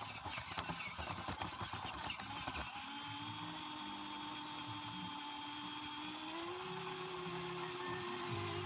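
Axial radio-controlled car's electric motor and gears whining as it drives, heard through a camera mounted on the car. It rattles and knocks over rough ground for the first two and a half seconds, then settles into a steady whine on smooth tile that rises slightly in pitch about two-thirds of the way in.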